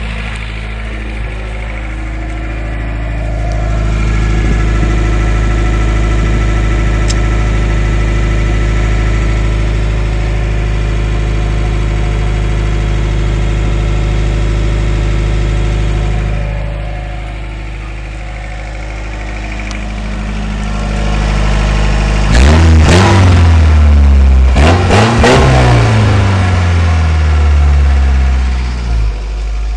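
1994 Toyota pickup's exhaust, open just ahead of the rear axle after a Flowmaster Super 44 muffler, idling with a deep sound. About three-quarters of the way through the engine is revved a couple of times, the loudest part, and drops back to idle.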